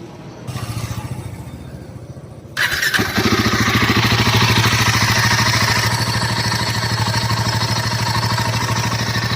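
Royal Enfield Himalayan 450's 452 cc liquid-cooled single-cylinder engine being started: the starter cranks for about two seconds, the engine catches and then settles into a steady, evenly pulsing idle.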